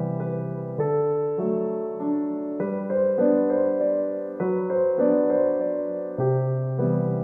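Gentle solo piano music, with new notes and chords struck about every half second to a second.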